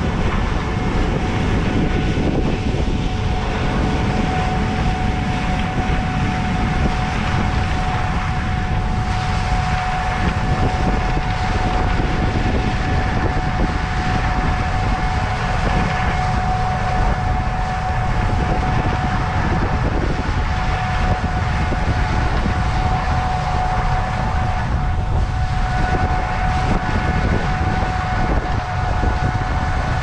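Gleaner S77 combine running under load while harvesting corn: a steady engine drone with a constant high whine over a low rumble.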